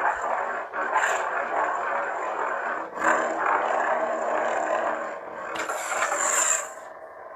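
Lightsaber sound font on a Proffie saber board: a steady blade hum with swing surges about one second and three seconds in and a bigger, brighter swing around six seconds, then the hum drops low near the end.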